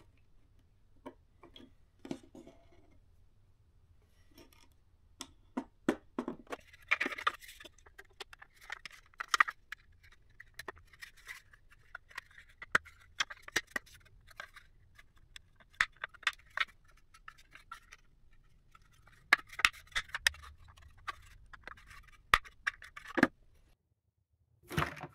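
Hard 3D-printed plastic parts being handled and fitted together on a desk: scattered clicks, taps and scrapes, busiest about a third of the way in and again in the last few seconds. The handling stops abruptly shortly before the end.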